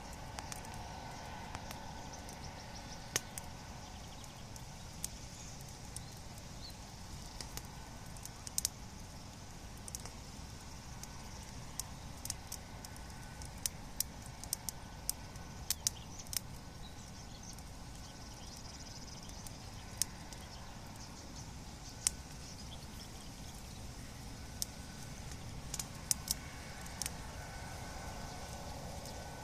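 Bonfire crackling: irregular sharp pops and snaps of burning wood, scattered unevenly, over a steady low background rush.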